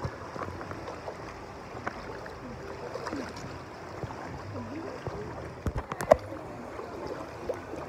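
Water running and splashing in a shallow pool as people wade through it, with faint voices in the background. A few sharp splashes or knocks come about six seconds in.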